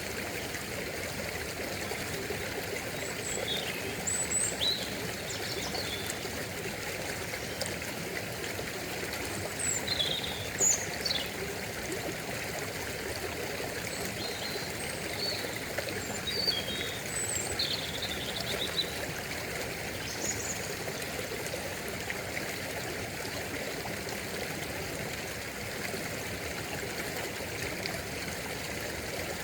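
Stream water flowing and trickling steadily, with birds chirping now and then, mostly in the first two-thirds.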